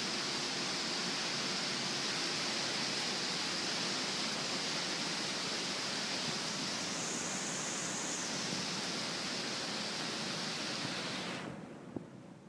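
Heavy rain falling steadily, a dense even hiss. It drops away sharply near the end, followed by a single click.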